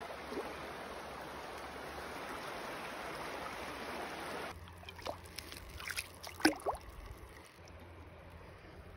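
Creek water rushing steadily over a shallow riffle. About four and a half seconds in it drops off suddenly to a quieter background, with a few short sharp clicks, the loudest about six and a half seconds in.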